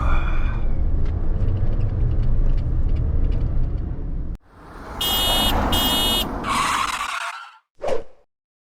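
Suzuki Jimny JB64W with its 660 cc turbo three-cylinder, driving: a steady low engine and road rumble heard inside the cabin. About four seconds in it cuts off suddenly. A loud rushing noise follows, with two short high ringing tones and a brief blip near the end.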